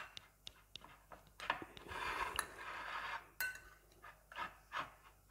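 Metal spoon stirring crumbly paneer filling in a glass bowl: soft scraping with scattered light clinks of the spoon against the glass.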